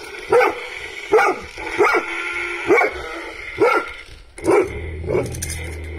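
Cane Corso puppy barking repeatedly at a toy, about seven short barks roughly a second apart.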